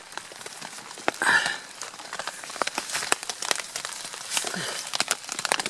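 Rain falling on a small tent, heard from inside: many irregular drop ticks over a steady hiss, with a louder rustle of tent nylon about a second in.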